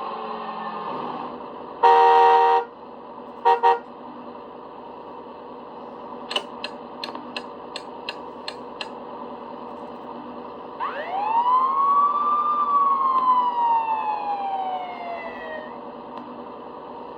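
Ecto-1 sound effects played through a LEGO light kit's small sound module: a short horn blast, two quick beeps, a run of about eight clicks, then one siren wail that rises quickly and slowly falls away.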